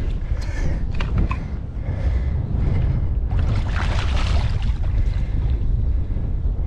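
Wind buffeting the microphone throughout. A few light clicks come about a second in, and a splash about halfway through as a hooked muskie thrashes at the water's surface beside the boat.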